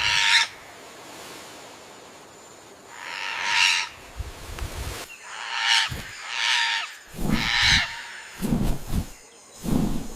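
Parrot giving harsh, screeching squawks, about five in all, spaced a second or two apart. Low thumps come in between them in the second half.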